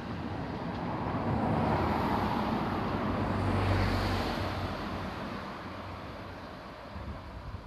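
Diesel railcar of the Yodo Line running past, a steady rumble of engine and wheels with a low hum that swells about halfway through, then fades away near the end.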